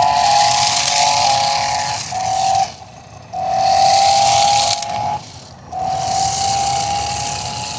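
RC drift car's motor whining at a steady high pitch over a hiss of wheels and gears, cutting out twice for about half a second as the throttle is let off, then creeping up in pitch near the end.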